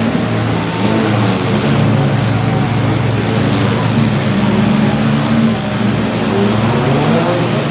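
Several demolition derby cars' engines running and revving together, their pitches rising and falling as they move about the arena.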